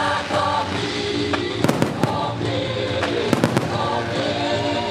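Aerial fireworks going off: two clusters of sharp bangs, about one and a half seconds apart, with scattered cracks. Music plays steadily underneath.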